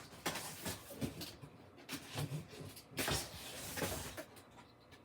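Cardboard box and packaging being handled: irregular rustling and scraping with a few sharp knocks, the loudest about three seconds in.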